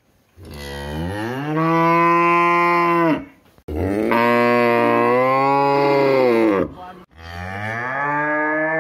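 Cows mooing: three long moos of about three seconds each, with brief gaps between. Each starts low and rises in pitch before being held, the last still going at the end.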